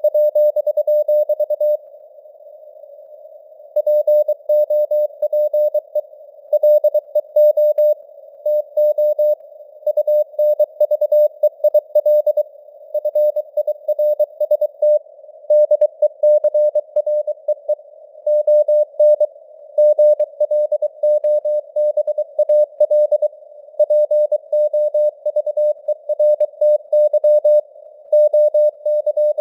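Morse code (CW) sent at 23 words per minute: a single tone near 600 Hz keyed on and off in dots and dashes, over a narrow band of simulated radio hiss. The keying stops for about two seconds near the start, then runs on.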